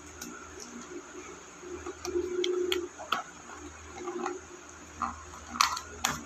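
Scissors working at the packing tape on a small cardboard box: scattered soft clicks and scrapes, with two sharper clicks near the end.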